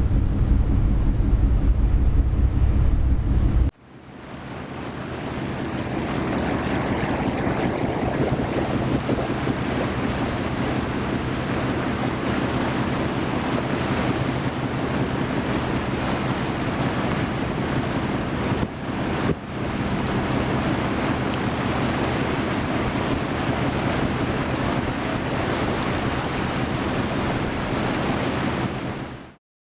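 Ferry underway: a loud, low engine hum for the first few seconds, then, after a cut, a steady rush of water from the wake with wind on the microphone.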